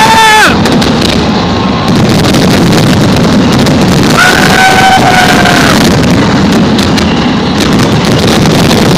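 Horn blasts, each held about a second and a half with a slight drop in pitch as it ends, over a loud steady rumble with wind noise. One blast ends about half a second in, another sounds from about four to six seconds, and a third starts near the end.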